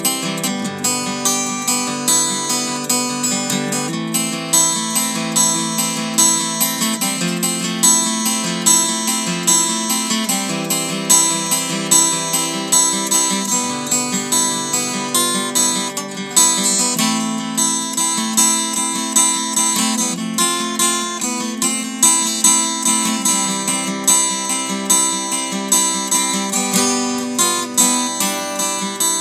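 Solo acoustic guitar instrumental played on a Taylor W14, a continuous stream of plucked notes with a regular pulse.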